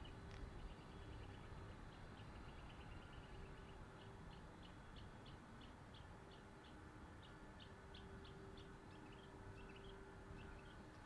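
Faint bird chirping: a string of short high chirps, about three a second, over a low steady background rumble.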